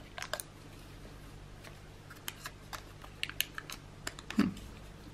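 Light, irregular clicks and taps of paper and craft materials being handled on a desk during journaling, coming in small clusters, with one louder dull knock about four and a half seconds in.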